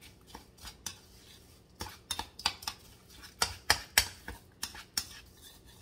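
A spoon stirring crushed crackers with melted butter and poppy seeds in a bowl: irregular clinks and taps of the spoon against the bowl, loudest about three to four seconds in.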